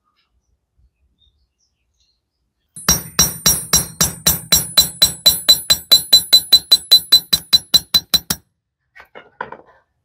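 After a few seconds of silence, a fast run of sharp ringing strikes. There are about five a second, speeding up slightly, and they stop suddenly after about five seconds.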